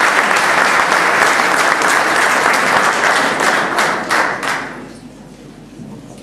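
Audience applauding: dense clapping that dies away about four and a half seconds in, leaving a few scattered claps.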